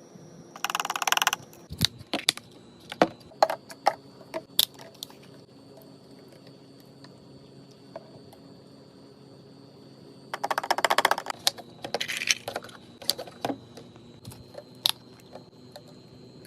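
Drink cans and bottles clinking and knocking as they are set into a mini fridge, with two spells of crinkly packaging rustle, one near the start and a longer one about ten seconds in.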